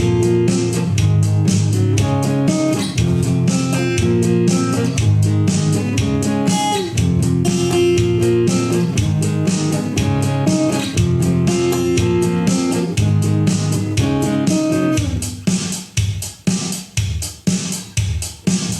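Guitar music with bass notes played loud through an active speaker. About fifteen seconds in, it drops to a bare drum beat of about two hits a second.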